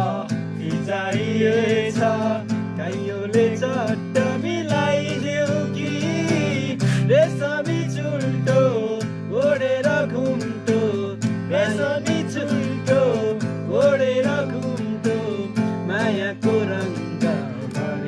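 Background music: a song with plucked guitar and a melodic voice over a steady bass.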